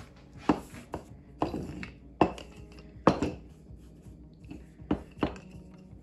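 Wooden rolling pin knocking and rolling on a countertop as dough is rolled out: a string of sharp wooden knocks, about eight over six seconds, two of them close together about three seconds in, as the pin is set down.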